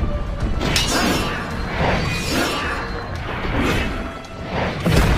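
Background music with repeated sweeping, crash-like sound effects about once a second, and a heavy low hit near the end.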